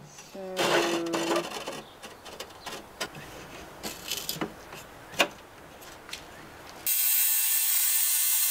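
Electric tile saw switched on about seven seconds in, starting abruptly and running steadily with a strong high hiss as a ceramic tile is fed into the blade for a thin trim. Before it, a few light knocks and clicks of the tile and saw fence being handled.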